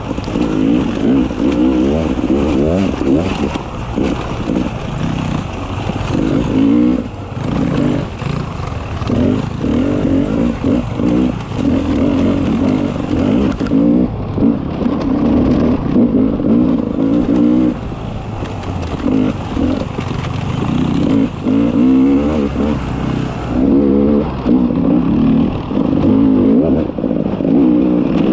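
Beta 300 RR two-stroke single-cylinder enduro motorcycle engine under load, revving up and dropping back over and over as the throttle is worked, with some clatter.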